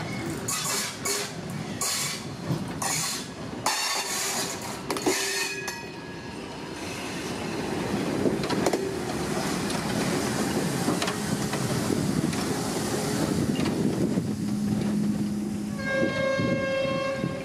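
Two-cylinder DR class 50 steam locomotive moving slowly past at close range. Sharp exhaust chuffs come about one to two a second for the first few seconds, then a steady rumble and hiss from the engine and its running gear as it passes. A short steady pitched tone sounds near the end.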